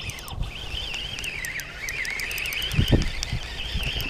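A songbird singing one long, continuous, high warbling song. Low thumps from handling or wind on the microphone come about three seconds in.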